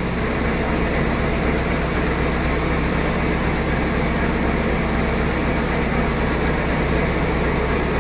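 Steady running noise of workshop machinery: an unbroken drone with a constant low hum and a faint high whine.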